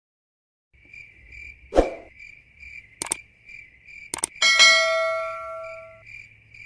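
Meme sound effects: crickets chirping steadily, with a thud about two seconds in, sharp clicks near three and four seconds, and a bell ding at about four and a half seconds that rings out for over a second.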